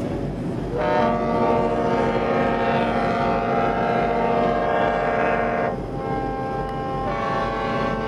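Tugboat horns: one long horn blast of about five seconds, then a second horn on different notes starts up right after it and keeps sounding, over the low rumble of engines and churning water.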